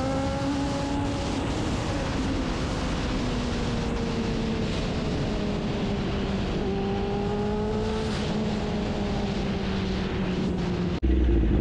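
Kawasaki Ninja ZX-9R's inline-four engine running at a steady cruise, its pitch sinking slowly as the bike rolls along, over a haze of wind noise. Near the end the sound cuts off abruptly and a louder, deeper engine note takes over.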